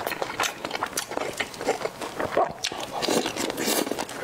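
Close-miked chewing and biting of Korean rice sausage (sundae), many quick wet clicks and smacks of mouth noise.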